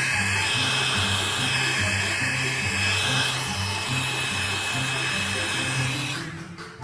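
Steady whirring rush of an electric motor-driven machine, with a thin steady high whine, over background music with a pulsing bass line; the whir fades out about six seconds in, leaving the music.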